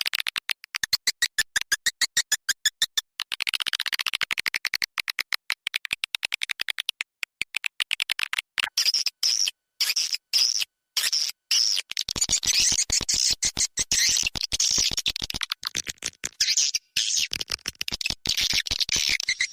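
Swiftlet lure call: a looped recording of swiftlets twittering in rapid runs of high chirps and clicks, with a few short gaps about halfway through, the sound played to draw swiftlets into a nesting house.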